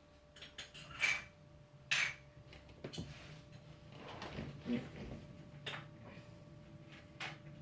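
Mini plastic batting helmets being handled in a plastic standings display, pulled out and pushed into their slots, giving several short sharp clicks and scrapes; the loudest come about one and two seconds in.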